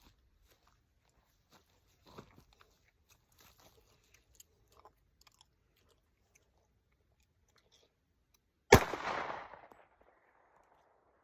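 A single pistol shot near the end, loud and sudden, with a short echoing tail. Before it come faint scattered clicks and handling noises.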